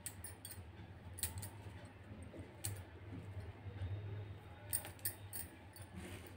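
Scattered light clicks and rustles of hands picking over and trimming a bunch of fresh coriander with a knife, with bangles clinking on the wrists, over a steady low hum.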